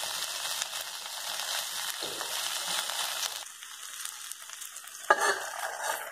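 Sliced okra and onion sizzling in hot oil in a kadai while being stirred with a spatula, a steady hiss. About five seconds in there is one sharp metallic clank as a steel lid is set on the pan.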